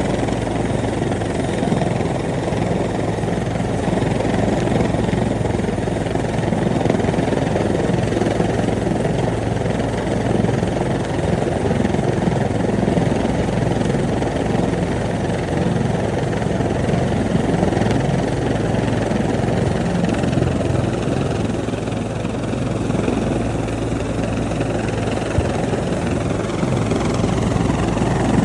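A steady, loud, low rumbling noise with no clear rhythm, holding at one level throughout.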